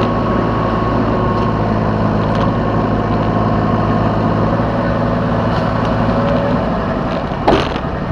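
Yanmar B3 Sigma mini excavator's diesel engine running steadily, heard from the operator's seat, with a faint whine over it. The engine note eases off slightly near the end, and a single sharp clank comes about seven and a half seconds in.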